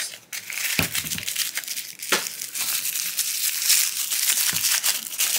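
Thin paper wrapper crinkling and tearing as it is unfolded by hand, a dense run of crackles. A couple of sharper clicks come in the first two seconds, from the plastic capsule being opened.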